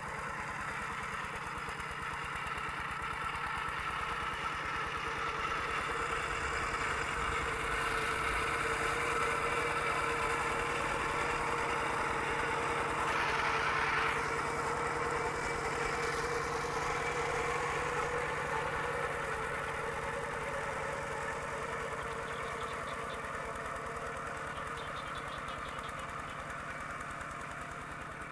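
Kubota RT120 single-cylinder diesel engine on a two-wheel walking tractor running steadily under load in wet mud, with a rapid knocking beat. It grows louder toward the middle, as the tractor comes nearest, then fades.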